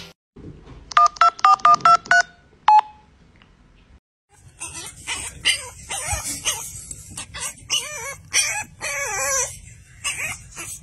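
Seven short two-tone beeps like a telephone keypad being dialled, six in quick succession about a second in and one more shortly after. From about four and a half seconds on, a young puppy whines in a rapid series of high, wavering cries.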